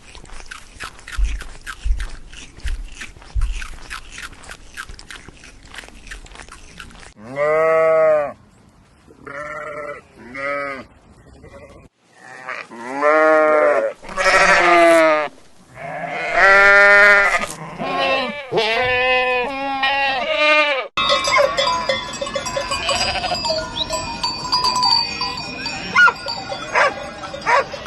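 Sheep bleating: about seven calls in quick succession, each rising and falling in pitch, after a stretch of rapid clicking. Near the end the calls give way to a mix of steady high tones and clicks.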